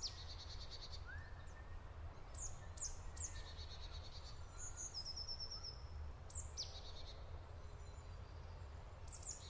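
A songbird singing. Its high phrases are each a quick downward sweep followed by a rapid trill, repeated several times. A steady low rumble runs underneath.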